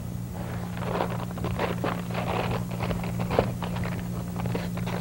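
A sheet of paper being handled, crinkling and rustling in quick irregular crackles, over a steady low electrical hum.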